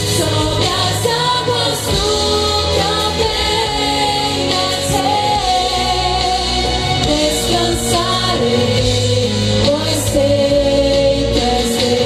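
A woman singing a slow gospel song into a handheld microphone, amplified through a stage sound system over instrumental accompaniment, holding long notes that glide between pitches.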